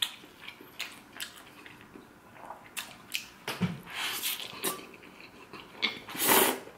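Close-up mouth sounds of eating spaghetti: chewing and short smacks, then a longer, louder slurp of noodles drawn off a fork near the end.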